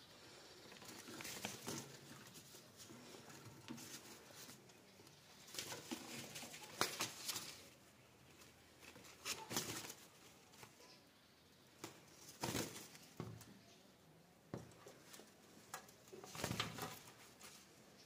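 Rose-ringed parakeet flapping its wings and shuffling about: faint, short flutters and scuffs every second or few, the strongest a few seconds in and again near the middle.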